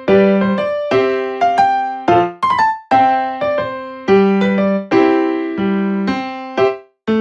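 Background music: a keyboard melody of struck notes, each one fading, a couple of notes a second.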